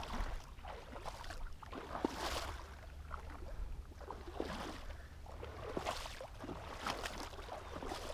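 Wading steps through shallow flooded-field water: a swish and splash about every second, over a steady low rumble of wind on the microphone.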